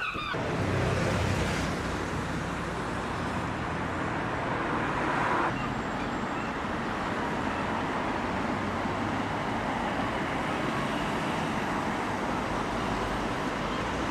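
Steady road traffic noise, with vehicles swelling past about a second in and again around five seconds in.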